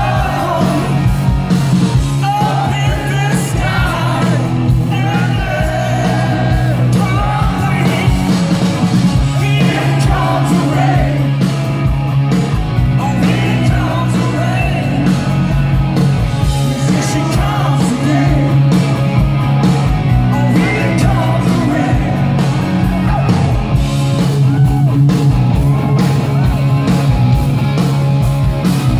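Live rock band playing loud and without pause: a singer over amplified electric guitar, bass and drums, heard from within the crowd.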